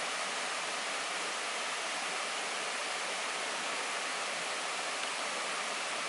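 Steady, even rush of flowing water from a waterfall-fed forest stream.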